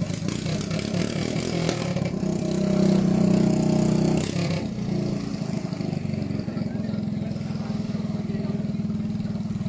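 Small pump boat engines running at the start line, one revving up for a second or two about two and a half seconds in, then settling back to a steady run. A rushing hiss of spray or wind sits over the engines and stops about four and a half seconds in.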